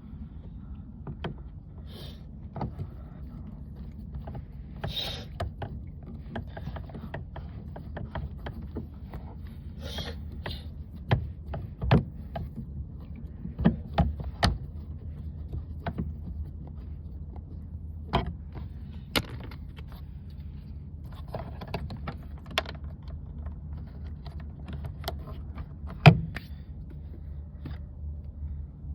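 Scattered clicks, knocks and rattles of parts and tools being handled in a car's interior, over a steady low hum. A cluster of sharper knocks comes about halfway through, and one loud knock near the end.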